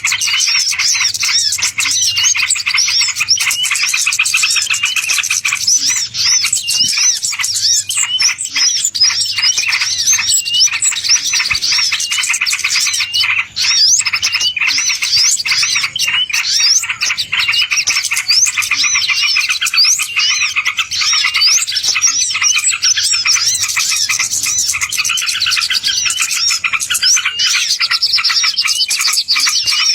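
Small songbirds twittering and chirping without a break, a dense run of quick high chirps and short rising and falling notes. It is a recording played to lure wild birds.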